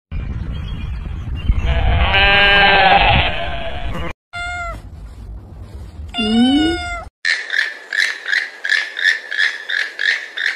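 A sheep bleats once in a long wavering call, then a domestic cat meows twice, the second meow rising and falling. Near the end, a rapid run of short, repeated calls follows, about three a second.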